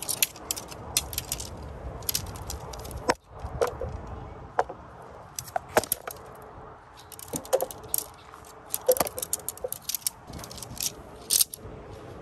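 Tent pole sections clacking and rattling against each other as they are pulled apart and gathered into a bundle: a string of sharp clicks coming in quick clusters, with a few louder clacks.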